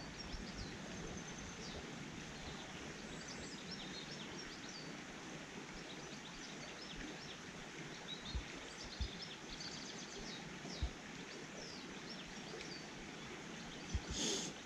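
Outdoor ambience of steady wind noise with small birds chirping and singing throughout, and a few soft low thumps of wind on the microphone; a brief rushing gust near the end.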